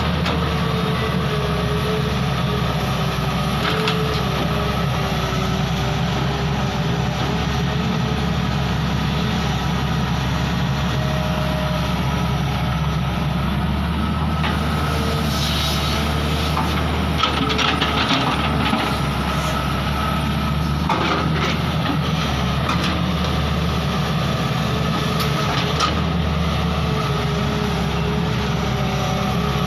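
Excavator's diesel engine running steadily under load with a wavering hydraulic whine as it loads a dumper truck. A few scattered knocks and rattles come partway through.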